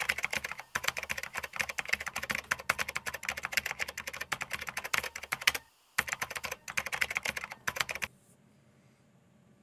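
Fast, irregular typing on a backlit computer keyboard: a dense run of key clicks with a brief break a little past halfway, then stopping near the end and leaving faint room hiss.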